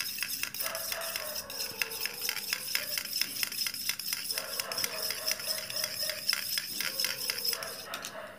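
Steel spoon beating raw eggs in a small stainless steel bowl: rapid, regular clinks of the spoon against the bowl, several a second, stopping just before the end.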